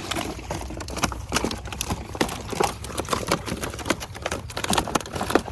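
Rapid, irregular knocking and slapping of freshly netted fish flapping and being handled.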